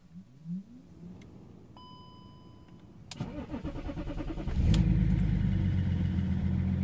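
A car is started: a short electronic beep, a click, then the starter cranks for about a second and a half before the engine catches about 4.7 seconds in and settles into a steady idle.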